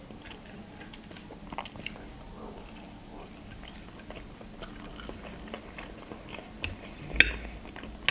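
Close-miked chewing and mouth sounds of someone eating mashed potatoes and a meat cutlet, with scattered short clicks and a sharper click about seven seconds in.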